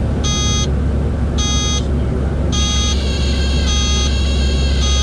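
Cockpit warning horn in an A36 Bonanza beeping in short pulses about once a second, one of them held a little longer near the middle, over the steady low drone of the engine and propeller at idle. The airspeed is at the edge of the stall.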